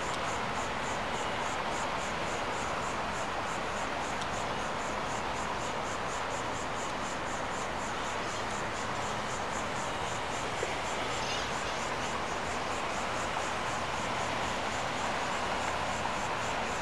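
Insect chirping in an even high pulse a few times a second, over a steady background hiss.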